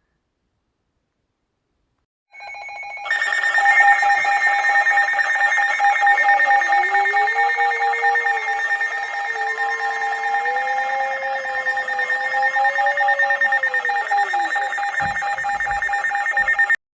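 A weather alert radio sounding its alarm: a loud, steady electronic tone with a fast flutter. It comes in about two seconds in, rises to full level a second later and cuts off abruptly near the end, with a few low knocks just before it stops.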